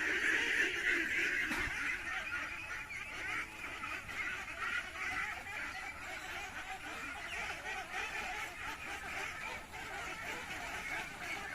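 A flock of domestic ducks calling together, a steady chatter of many overlapping calls with no pauses.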